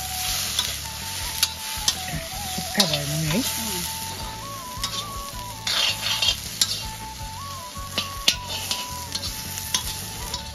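Food frying in hot oil in a pan, sizzling steadily while a metal spoon stirs and scrapes, with frequent sharp clinks against the pan. A background melody plays over it.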